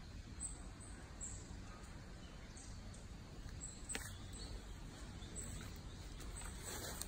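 Small birds chirping: short, high-pitched chirps about once a second over a faint steady outdoor hum, with one sharp click about four seconds in.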